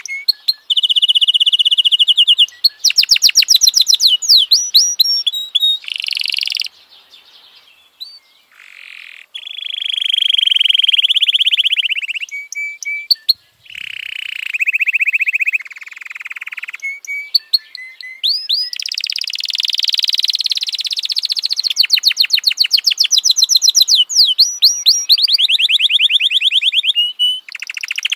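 F1 canary singing a long, loud song of fast trills of repeated notes, quick sweeping notes and held whistled tones, with a short lull about seven seconds in.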